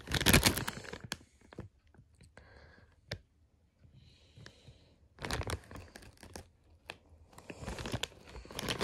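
Foil chip bag crinkling as it is handled and turned. The crinkling comes in two spells, with a near-quiet stretch in the middle broken by a single click.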